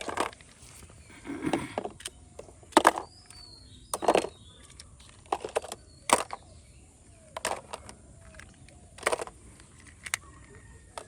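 Plastic toys clacking as they are set down one after another onto a toy truck, with about eight sharp knocks spaced a second or so apart.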